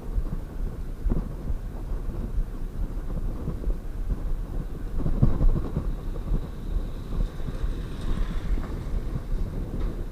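Wind rumbling and buffeting on the microphone of a moving bicycle rider, as an uneven low rumble with gusts.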